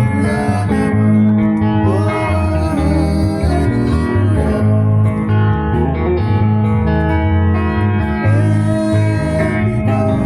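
Live band music: guitars playing over a steady bass line, with a sung melody that glides up and down.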